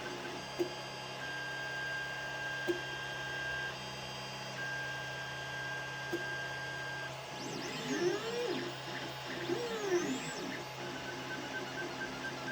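Ender 5 Plus 3D printer running a print, its stepper motors giving a steady whine with a low hum beneath and a few sharp clicks. A little past the middle come repeated rising and falling whines as the motors speed up and slow down through back-and-forth moves of the print head.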